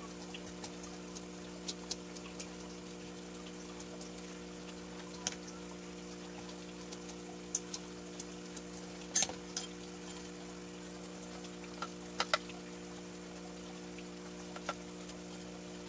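Hammer knocking on live snails on a concrete slab to crack their shells: scattered light taps and clicks, with the sharpest knocks about halfway through and again a few seconds later. A steady low hum runs underneath.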